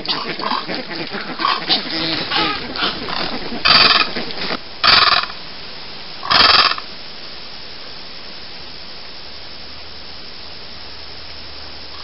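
A flock of white ibis calling, many short calls overlapping, with three louder harsh calls about four to six and a half seconds in. Then the calls stop and only a steady hiss remains.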